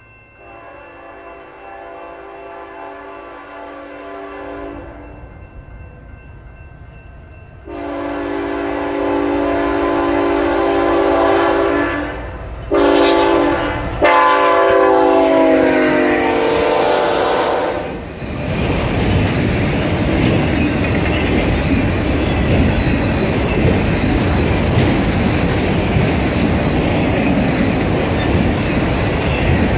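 BNSF freight train led by two GE diesel locomotives: the multi-chime air horn sounds a blast of about four seconds, then a long blast broken briefly in the middle, dropping in pitch as the lead unit passes. Then the steady rolling rumble and clickety-clack of the autorack cars going by.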